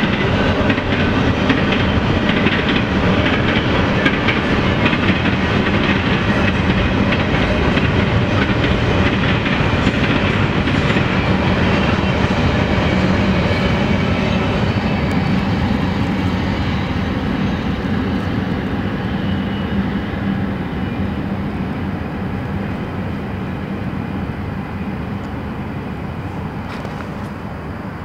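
Canadian Pacific intermodal freight train's double-stack container cars rolling across a steel girder bridge, wheels running over the rails. The sound fades steadily over the second half as the end of the train passes.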